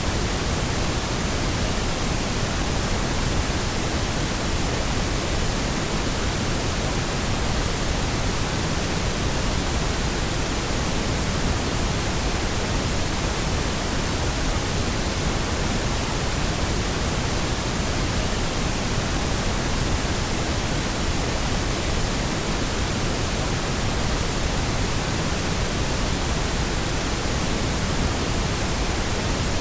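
Pink noise, a steady, even hiss that spreads across all pitches, unchanging throughout.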